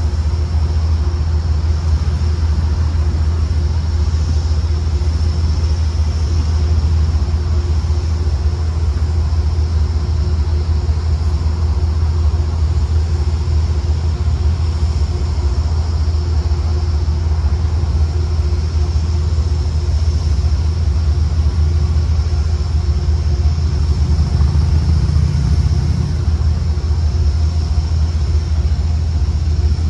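Steady low rumble of a car idling, heard from inside its cabin, with a faint steady hum above it and no change throughout.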